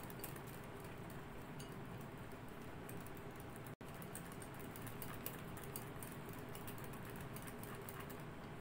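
Wire whisk beating whipping cream by hand in a glass bowl, thickening it: faint, irregular clicks of the wires against the glass.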